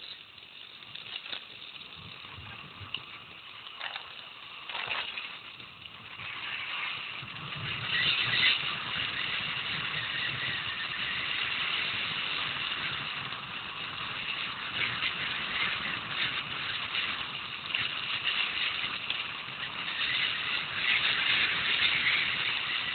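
Mountain bike descending a gravel road: tyres crunching over the loose surface and the bike rattling, with a few sharp knocks at first. About six seconds in it turns into louder, steady rolling noise.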